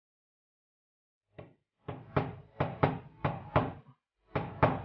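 Quick run of sharp taps from a metal tool worked against a stuck MOSFET on an ASIC miner hashboard, about three a second, starting about a second and a half in, with a short break near the end.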